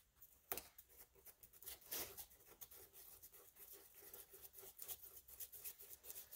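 Faint scraping and tapping of a small wooden stir stick mixing two-part epoxy on cardboard, in short irregular strokes.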